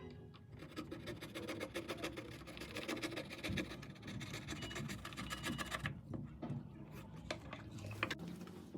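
Rapid scratching and scraping of a tool worked over a phone's body for about six seconds, then a few scattered clicks.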